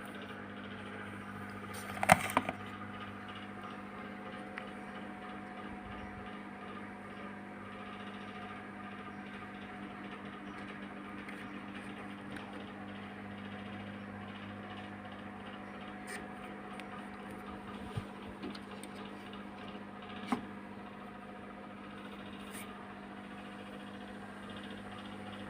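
Quiet steady hum with a few clicks and knocks from handling a television chassis, the loudest cluster about two seconds in.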